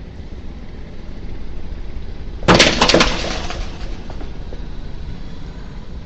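Car tyre rolling over and crushing a brittle object: a quick cluster of cracks and crunches about two and a half seconds in, over the low steady rumble of the car.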